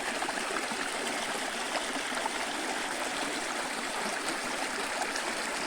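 Water rushing over rocks in a stream's rapids, a steady splashing hiss.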